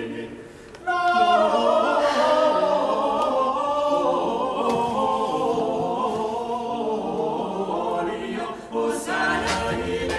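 Choir singing, coming in about a second in after a brief lull.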